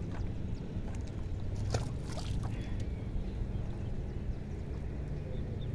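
Steady low rumble, with a few light clicks and taps about two seconds in, as a fishing longline and its hooks are handled in a small wooden canoe.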